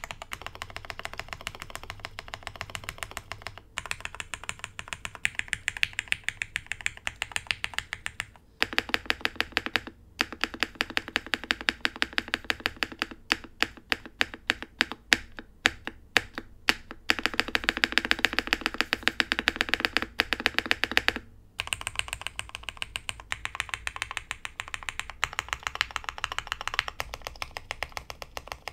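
Mechanical keyboard typing on a Jelly Epoch board fitted with broken-in, lubed Cherry MX Black Hyperglide linear switches on an aluminium plate and soldered PCB, under IFK Hive keycaps. Fast, steady keystrokes run throughout, denser and louder through the middle stretch, with a few brief pauses. The sound is poppy, which the uploader puts down most likely to the PE foam compressing under the solder PCB.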